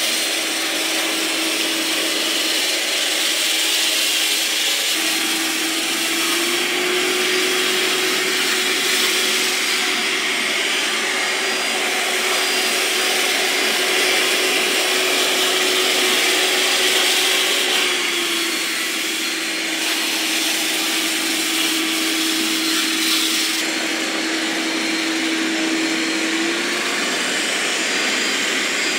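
Roomba 705 robot vacuum running, its suction fan hum stepping up in pitch about six seconds in, holding there for about twelve seconds, dropping back, then rising again near the end. The higher pitch is Dirt Detect raising suction above the highest manually settable level.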